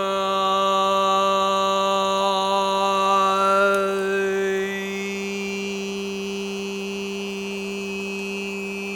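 A man's voice holding one steady toned note, as in qigong sound practice. The vowel colour changes and the tone gets a little quieter about four to five seconds in, as the held sound moves through the vowels of "why" (U, A, E).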